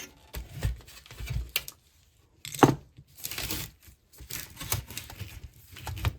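Hands working the monitor's circuit boards and steel frame apart: irregular clicks, knocks and rustling, with one sharp click about two and a half seconds in.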